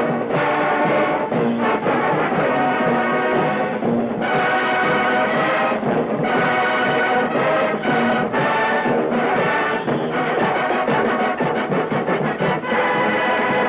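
Marching band playing: a full ensemble of brass with drums, loud and sustained, breaking only briefly between phrases.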